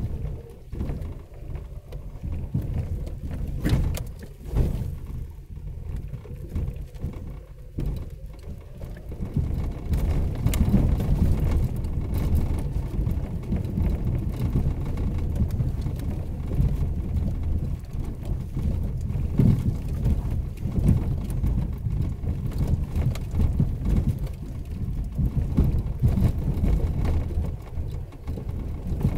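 A 4x4 driving over a rough dirt trail: a low rumble of engine and tyres with scattered knocks and rattles, growing louder about ten seconds in.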